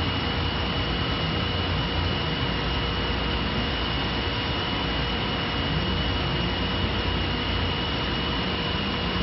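Three-spindle CNC wood lathe running and turning three wooden stair balusters: a steady, dense machine noise with one constant high whine through it.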